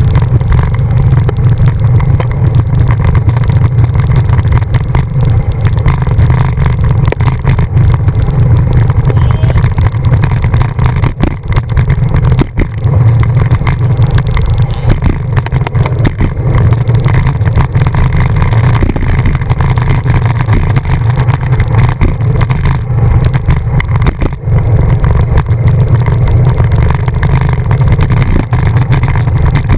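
Steady, loud wind rumble on a bicycle handlebar camera's microphone as the bike rides along in a group, with road and tyre noise from the wet pavement mixed in.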